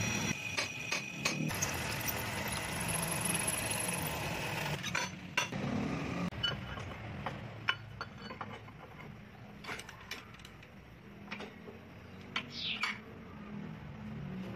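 A drill press running for about the first five seconds, then stopping. After that come scattered metallic clinks and knocks as a steel piece is handled and clamped in a bench vise, with a brief squeak near the end.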